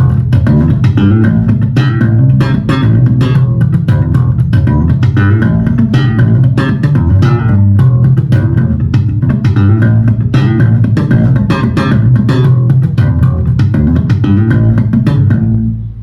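Electric bass guitar played through a Fender Rumble 25 V3 bass combo amp: a busy line of quick plucked notes with sharp attacks, dying away near the end.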